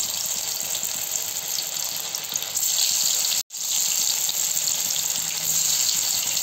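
Marinated baby corn pieces deep-frying in hot oil in a kadai: a steady sizzling hiss with fine crackle, broken by a momentary silence about three and a half seconds in. The oil is still bubbling hard around them, so the pieces are not yet fully fried.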